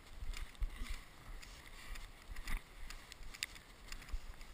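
Wind rumbling on an action camera's microphone as it is carried across a snowy field, with scattered faint clicks and crunches.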